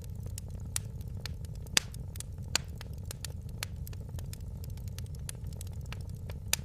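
Wood fire crackling in a fireplace: irregular sharp pops and snaps, the loudest a little under two seconds in, over a steady low rumble of the burning fire.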